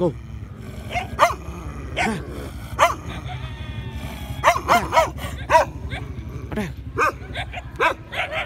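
Dogs barking: about a dozen short barks at irregular intervals, several falling in pitch, over a steady low rumble.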